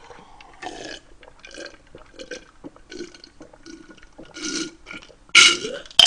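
A man gulping down a glass of fizzy strawberry Fanta, a string of soft separate swallows, followed near the end by a loud breathy gasp after drinking.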